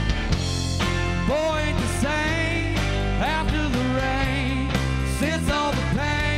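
A live country-rock band (electric guitar, bass and drums) playing an instrumental passage, with a lead line of sliding, bending notes over a steady low end.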